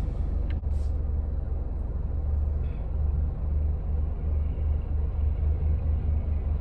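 Car running, heard from inside the cabin: a steady low engine and road rumble with a slight pulsing.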